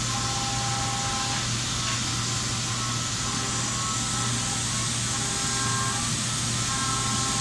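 Haas VF-5 vertical machining center cutting natural HDPE: a steady low machine hum under a hiss, with the cutter's whining tones dropping out and returning every second or two.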